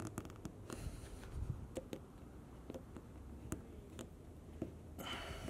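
Faint, scattered clicks and light taps as a chrome Mazda emblem is pressed and fitted into its guiding holes on a car's painted body panel, with a short rustle near the end.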